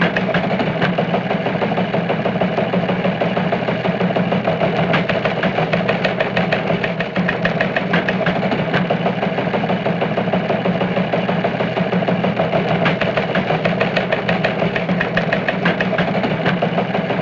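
An engine idling steadily, an even mechanical drone with a fast, regular ticking running through it.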